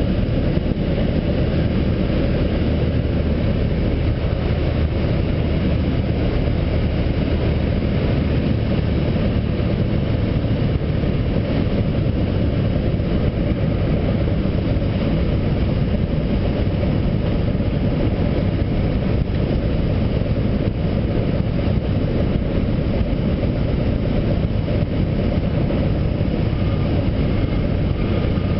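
Cessna 150's four-cylinder Continental O-200 engine and propeller running steadily, heard from inside the cockpit on final approach to a grass strip. The deepest part of the drone fades about eight seconds in.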